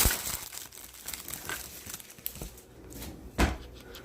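Crinkling as something is handled, fading over the first second, with scattered small ticks and a louder knock about three and a half seconds in.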